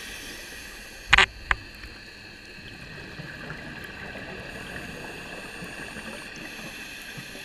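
Muffled underwater ambience heard through a camera's waterproof housing: a steady hiss, with a sharp knock about a second in and a smaller click just after.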